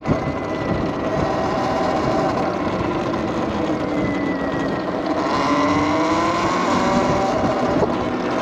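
Talaria Sting TL4000 electric motorbike's motor whining as it rides, its pitch shifting with speed around the middle, over steady wind and tyre noise.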